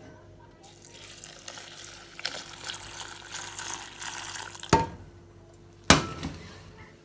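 Water running for about four seconds, then two sharp knocks about a second apart.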